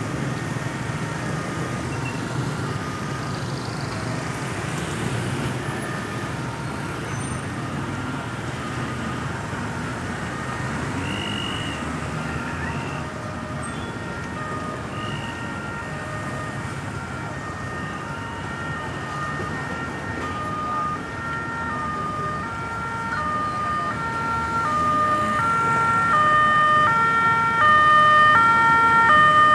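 Ambulance siren sounding a two-tone hi-lo pattern, alternating between two pitches, approaching: faint at first and growing steadily louder over the last ten seconds. Under it runs a steady rumble of road traffic.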